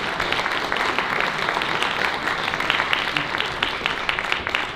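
Audience applauding, the dense clapping thinning into scattered separate claps toward the end.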